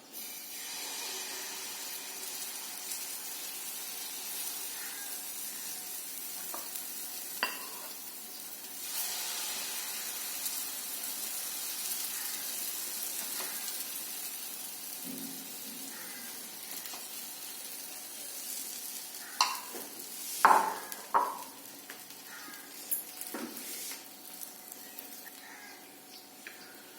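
Oil sizzling steadily as a besan veg kulcha fries in a hot pan. A few sharp knocks and clatters come about two-thirds of the way through.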